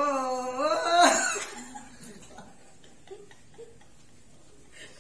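A drawn-out, wavering vocal note that breaks into a loud burst of laughter about a second in. Softer scattered laughter follows.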